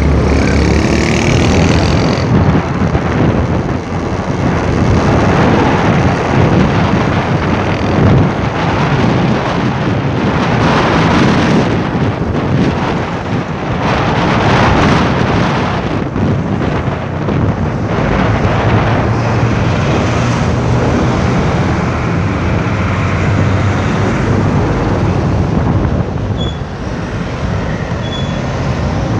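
Road traffic noise heard from inside a moving vehicle: a steady rush of engine and tyre noise that swells and eases every few seconds among trucks, cars and motorcycles.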